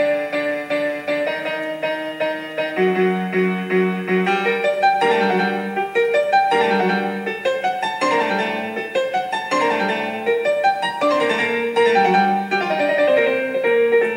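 Background piano music, a steady run of notes played at an even pace.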